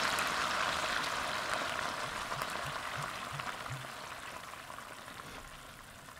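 Bacon fat, chopped bacon and bourbon simmering and sizzling in a stainless steel skillet as maple syrup is poured in. The sizzle fades steadily and has almost died away by the end.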